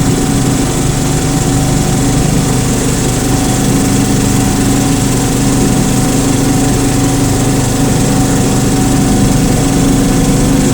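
Engine of an 18-inch gauge hydrostatic-drive locomotive running at a steady drone, heard from the cab during the ride.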